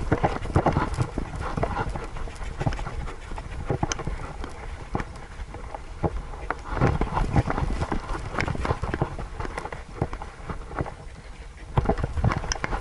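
A Siberian husky running on grass, heard through a camera strapped to its back: irregular thuds and knocks of its strides and the mount jolting, over a steady low rumble. The knocking eases for a stretch after about ten seconds, then picks up again near the end.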